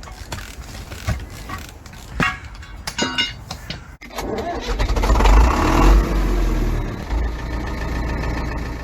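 An engine starting and then running with a strong low rumble that slowly dies away, after about four seconds of scattered knocks and clicks.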